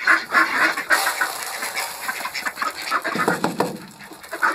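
A flock of domestic ducks quacking, many short overlapping calls that thin out and quieten after about three seconds.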